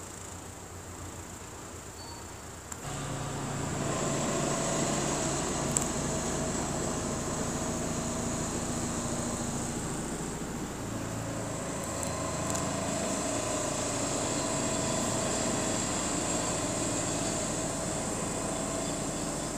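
A steady mechanical hum with several held tones, stepping up in level about three seconds in and then running on evenly.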